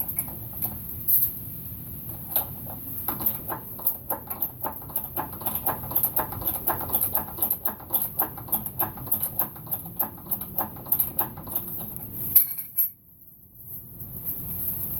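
A jack being worked under the front of a 5-ton military truck to lift the wheel onto the hub: rapid metallic clicking, about three or four clicks a second, which stops suddenly near the end.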